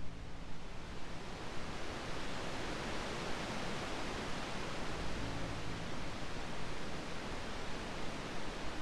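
Ocean surf as an even, steady hiss without distinct wave swells, with a faint soft music pad underneath; low held notes come up briefly about five seconds in.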